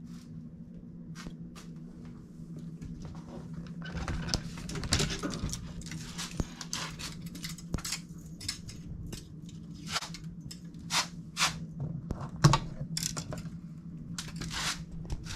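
Irregular clicks, clatters and rustles of things being handled, over a steady low hum, busier from about four seconds in.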